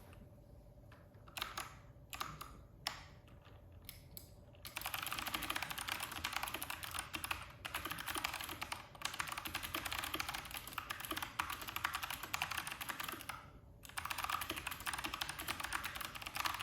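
Typing on a Hexgears G5 mechanical keyboard with clicky Kailh Box White switches. A few separate keystrokes come first, then fast continuous typing from about five seconds in, with a short break near the end.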